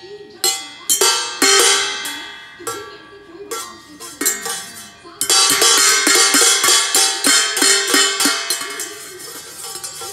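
Upturned stainless steel bowls and lidded tins struck with a fork and a spoon, each hit ringing like a bell. The hits come unevenly at first, then in a quick, dense run from about halfway through until near the end.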